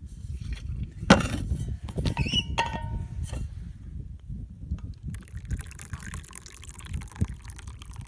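Tea poured from a steel vacuum thermos into its cup: a steady splashing pour that starts about five seconds in. Before it, a sharp knock about a second in and a brief squeak as the thermos is handled.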